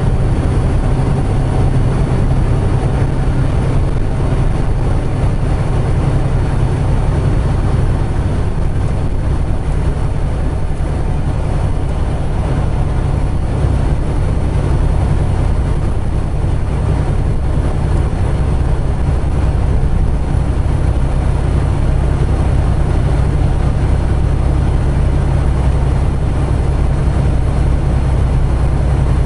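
Semi truck's diesel engine and tyres at steady highway cruising speed: a constant low engine drone under road noise, heard from inside the cab.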